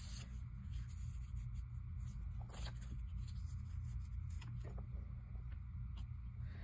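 Faint scraping and rustling of paper cut-outs being handled, rubbed with a glue stick and pressed onto a binder page, in short scattered strokes over a steady low hum.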